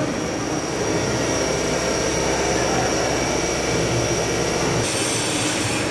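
Spindle of a CNC vertical machining centre running at a commanded 4000 rpm (M3 S4000): a steady high whine over a low hum, both cutting off about five seconds in.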